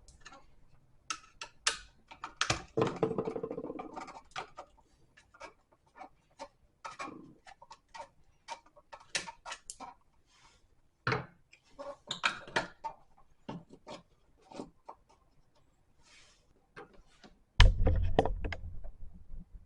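Irregular small clicks and knocks from hands and tools working on a GFCI outlet's wiring: a screwdriver at the terminal screws and wires being handled. Near the end comes a loud low rumbling handling noise.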